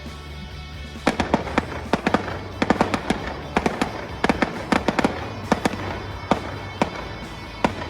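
Fireworks going off: a rapid, irregular series of sharp cracks and bangs, a dozen or more, with a lull around six to seven seconds in.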